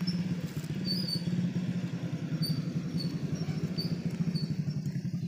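A small engine running steadily, a low hum with a rapid, even putter throughout. Short high chirps repeat about twice a second over it.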